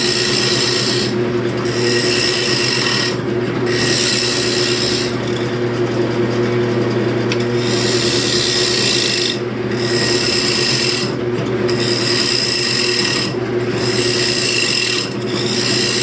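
Wood lathe running with a steady motor hum while a turning tool cuts the spinning wooden bowl: a scraping cut about a second long, repeated about eight times with short breaks between passes.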